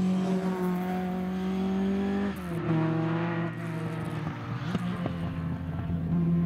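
A car's engine pulling away at a steady note, dropping in pitch a little over two seconds in and holding there.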